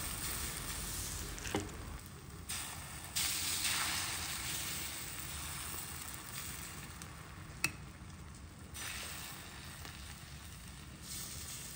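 Thin dosa batter sizzling on a hot, oiled iron dosa pan (tawa): a steady hiss that swells and fades a few times. One sharp click comes about two-thirds of the way through.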